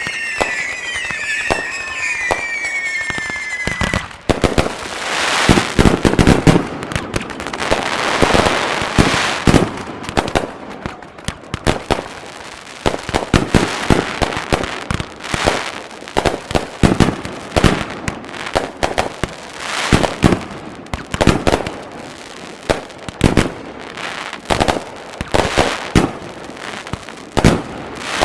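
A fireworks display fired continuously. Shrill whistles glide down in pitch over the first few seconds. After that come rapid overlapping bangs and crackling, then a steady run of sharp reports.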